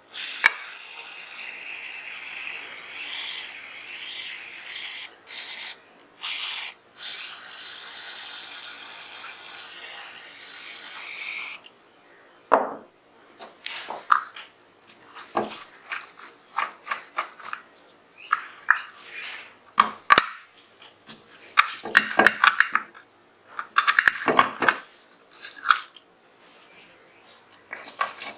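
A steady hiss, broken by a few short gaps, runs for about the first eleven seconds. Then come scattered sharp metallic clicks and clinks as the parts of a Zigana 36 9mm pistol are worked and taken apart.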